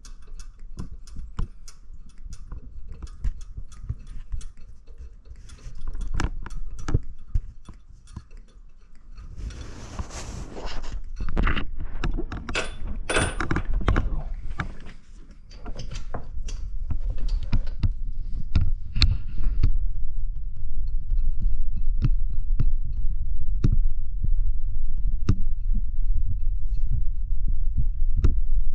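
Hand tools working the water pump bolts off an engine: scattered metallic clicks and clinks of a ratchet and wrench, with a brief rushing noise about ten seconds in. A steady low rumble runs under the second half.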